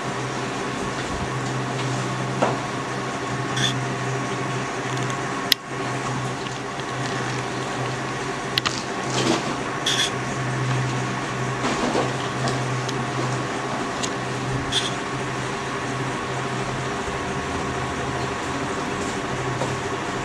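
Steady mechanical hum of a room appliance, with a few light clinks of steel dishes and a sharp click about five and a half seconds in.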